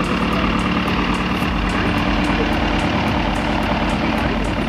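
Titan Tornado light aircraft's engine idling steadily, close by.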